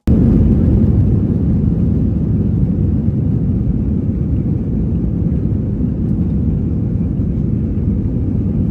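Jet airliner on its takeoff roll, heard from inside the cabin: a loud, steady low rumble of engines and runway.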